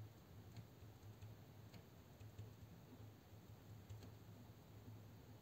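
Near silence with a pen writing on paper: faint, scattered ticks and scratches of the pen tip over a steady low hum.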